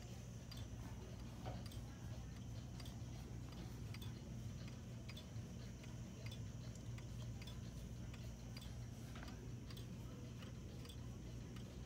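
Antique 1800s German time-only pendulum wall clock ticking at an even, steady beat, with a low steady hum underneath.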